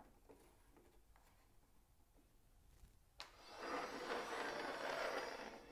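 Table saw rip fence being moved: a sharp click about three seconds in, then about two seconds of scraping and rubbing as the fence slides across the table and rail.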